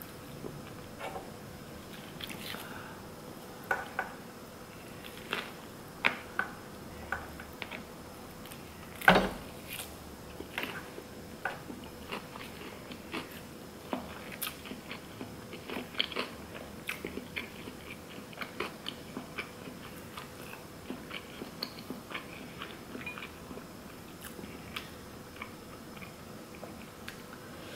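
Close-up eating sounds of a nori-wrapped sushi burrito: chewing and biting, with scattered small clicks and crackles as the food is handled and pulled apart, and one louder click about nine seconds in.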